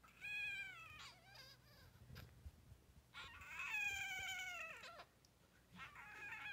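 Week-old kitten crying: two drawn-out high cries, the second longer, each falling in pitch as it ends, with a third beginning near the end. The kitten cries while being rubbed to make it poop, pushing that hurts a little at this age.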